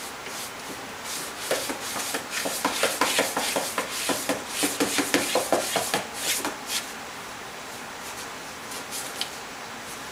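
Cat's paws and claws scratching and scrabbling at cardboard, a quick run of short scrapes for about five seconds, then a couple of faint scrapes near the end.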